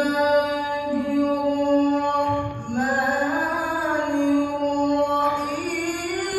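A qari reciting the Qur'an in the melodic tilawah style, holding long, slowly wavering notes with a short breath about two and a half seconds in and a climb to a higher note near the end.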